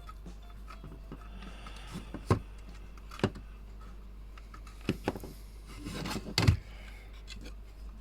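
A few sharp clicks and knocks from small parts being handled and set down on a workbench, over a steady low hum.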